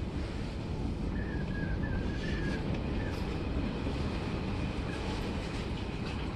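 Odakyu 3000-series and 8000-series electric train running on the line, heard from inside the driver's cab as a steady rumble. A faint wavering high tone comes in about a second in and lasts a couple of seconds.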